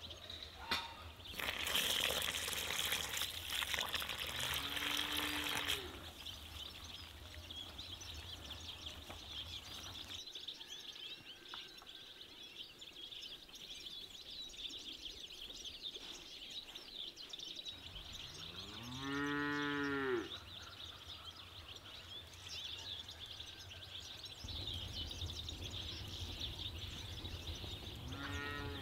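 A cow mooing: one long low call about two-thirds of the way in that rises and then falls in pitch, a fainter short moo about five seconds in, and another starting at the very end. Before that, from about two to six seconds in, comes a loud rushing splash of water poured from an enamel jug.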